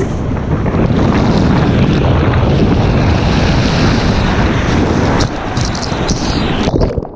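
Loud rushing of air and water over the microphone as a rider slides down the Summit Plummet speed water slide, with splashing near the end. The noise cuts off sharply about seven seconds in.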